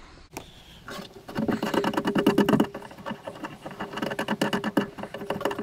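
A tail-light fixing screw being backed out with a screwdriver: fast, even rattling clicks over a steady whir, starting about a second in.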